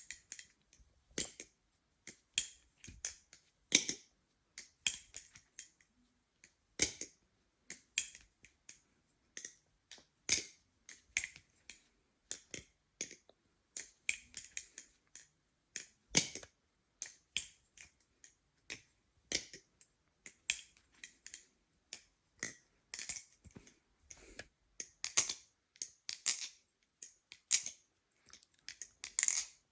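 Impulse balisong trainer with aluminium handles being flipped: irregular runs of light metallic clicks and clacks as the handles swing and close, several a second with short pauses between tricks.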